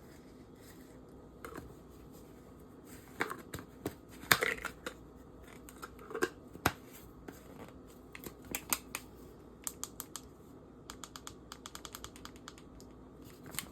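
Scattered small clicks, taps and brief rustles of objects being handled, with a louder cluster about a third of the way in and a quick run of light clicks near the end.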